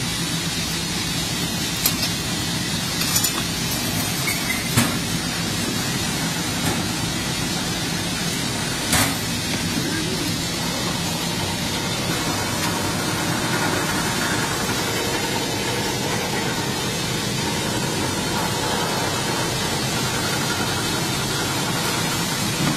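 Steady mechanical noise of a cardboard box-making machine running, with a few sharp knocks from bundles of flattened boxes being handled in the first ten seconds.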